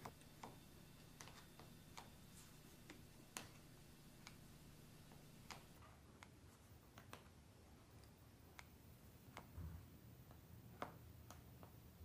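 Kitchen shears snipping the edge of raw pie dough: faint, sharp clicks of the blades closing, irregularly spaced, roughly once a second.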